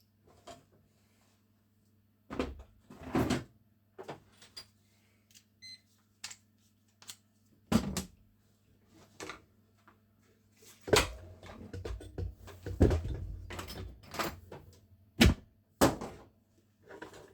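Bench handling noise: scattered clicks, knocks and rustles as the grinder's power cord and tools are handled for testing, sparse at first and busier in the second half, over a faint steady low hum.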